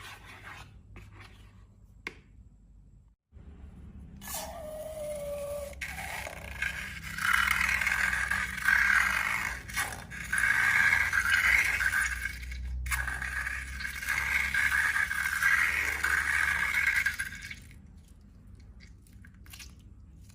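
Scraping and crackling of slime-making materials being handled, with a short squeaky glide about four seconds in, then a long stretch of dense, loud scraping that stops abruptly near the end.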